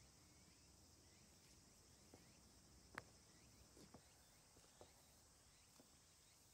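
Near silence outdoors: a faint steady high chirring of insects, with soft footsteps on paving about once a second, the clearest about three seconds in.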